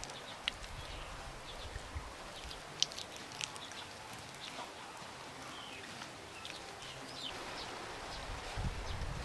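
Quiet outdoor ambience with a few short, high bird chirps, over the soft rubbing of hands on a wet clay sculpture. A low rumbling noise builds near the end.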